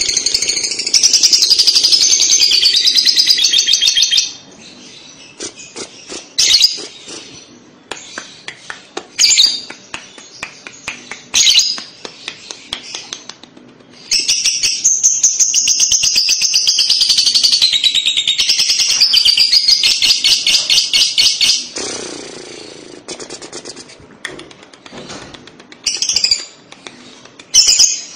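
Fischer's lovebird singing its long chattering 'kekek' song. Two long runs of rapid, high chirps, the second about eight seconds long, with short scattered chirps and clicks between them and near the end.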